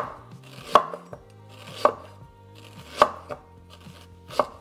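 Chef's knife slicing fresh ginger on a wooden cutting board: five sharp knife-on-board chops, roughly a second apart.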